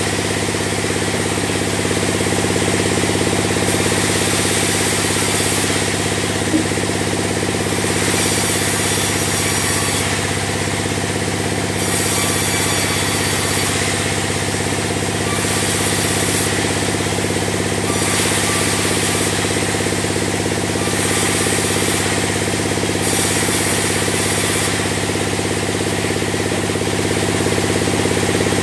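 Band sawmill running steadily as beams are sawn from logs, its machinery making an even drone, with a higher hiss that comes and goes about every two seconds.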